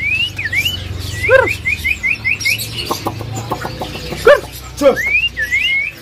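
Several songbirds singing: clear rising whistles, a quick run of about ten short rising notes, and lower arching whistled notes about a second and a half in and again near four and five seconds.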